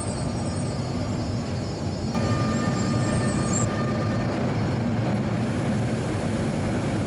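Genova Metro train running, a steady rumble with a thin whine that comes in about two seconds in and fades out about two seconds later.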